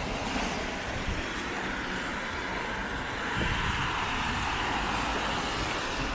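Road traffic on a wet street: a steady hiss of tyres on wet tarmac that swells a little past the middle.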